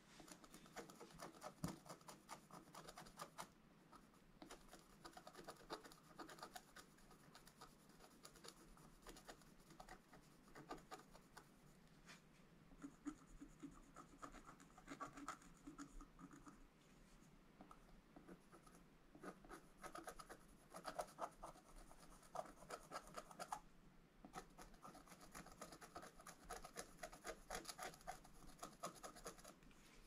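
Wooden stylus scratching the black coating off a scratch-art sheet: quiet, quick little scratching strokes, with a few short pauses.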